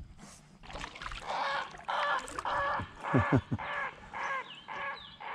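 A large bird calling close by: a loud series of harsh, honking calls, about two a second, beginning a little over a second in.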